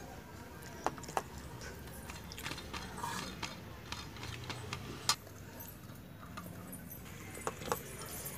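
Scattered sharp clicks and light taps of a meal being eaten by hand, over a low steady background hum.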